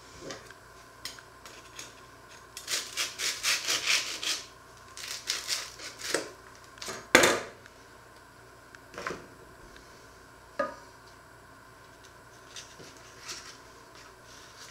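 A knife sawing through a crusty bread roll on a wooden cutting board: runs of quick rasping strokes, then a sharp knock on the board about seven seconds in, followed by a few lighter taps and crackles.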